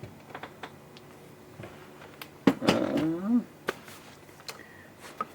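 Scattered light clicks and knocks of metal air-conditioning compressor parts being handled, the sharpest about two and a half seconds in, followed right after by a brief murmured voice.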